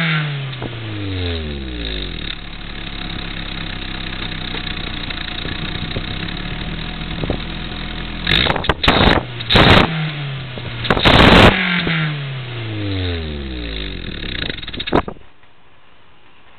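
1990 Toyota Celica GT's 2.2-litre four-cylinder engine idling and being blipped four times in quick succession. Each rev brings a loud rushing whistle from a bolt-on exhaust 'turbo whistle', and the revs fall back slowly to idle. The engine shuts off suddenly about 15 seconds in.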